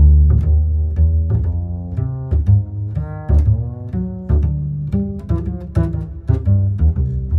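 Music with strings: a bass line of short plucked notes, several a second, under higher string notes.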